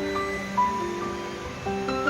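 Background music: a gentle instrumental melody of held notes that change pitch every half second or so.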